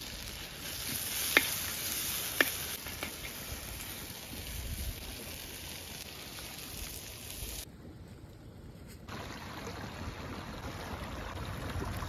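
Steady outdoor rushing hiss beside a campfire, with two sharp clicks in the first few seconds and a brief dip in level a little past the middle.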